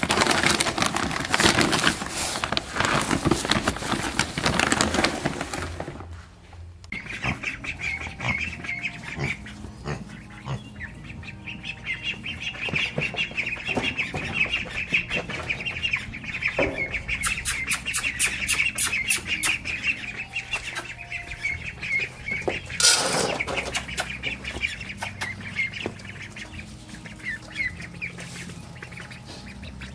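Paper-and-plastic feed bags rustling loudly as pellet feed is scooped out for about the first six seconds. After that, ducks call steadily in their pen, with one brief loud noise about two-thirds of the way through.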